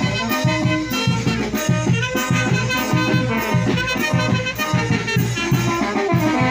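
Live band music from the fiesta's orquesta, horns over drums, playing a dance tune with a steady beat.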